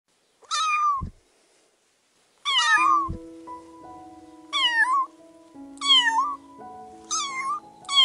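Kitten meowing about six times in short, high calls that each fall in pitch. Background music with held notes comes in about three seconds in, with a low thud after each of the first two meows.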